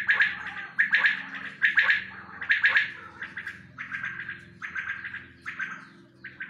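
Several caged desi quails calling, short rasping calls, one after another, about one a second, louder in the first half.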